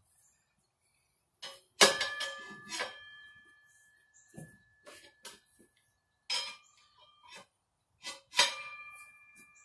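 Steel tire spoons clinking as they lever a motorcycle tire's bead over the wheel rim. There are a few sharp metallic clinks, each ringing on briefly, with the loudest about two seconds in and another near the end.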